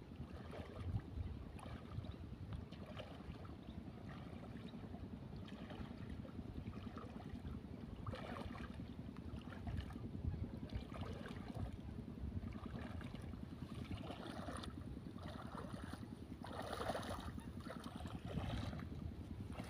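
Low wind rumble with shallow water lapping and splashing at the shoreline, the splashes growing busier in the second half.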